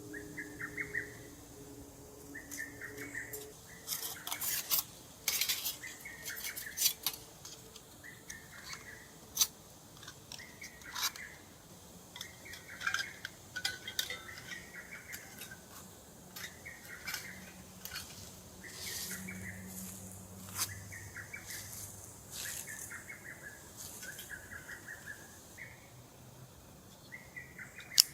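A bird calling over and over, a short call repeated about once a second, with scattered sharp clinks of metal cookware being handled.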